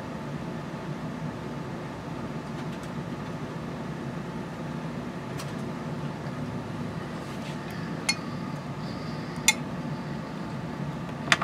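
Steady low hum of a running kitchen appliance, with a few sharp clinks in the second half as a utensil taps the glass bowl of glaze.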